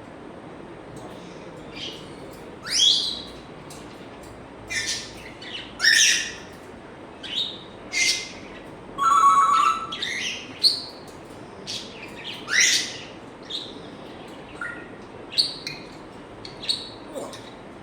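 African grey parrot vocalizing: a string of short chirps, clicks and squawks with rising whistles, and a held, layered whistle of under a second about nine seconds in.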